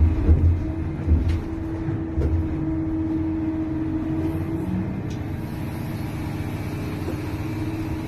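Large excavator's engine running with a steady low rumble. A steady hum holds until a little past halfway, then drops away. A few heavy low thuds come in the first two seconds or so.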